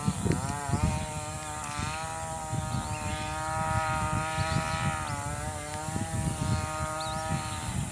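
A small engine running steadily for several seconds at a nearly even, slightly wavering pitch, over a low rumble.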